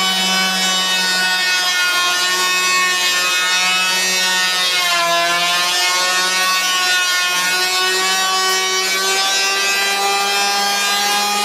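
Handheld electric power planer running steadily as it shaves a wooden beam, a high motor whine with cutter noise; its pitch dips briefly about five seconds in as the blades bite harder, then recovers.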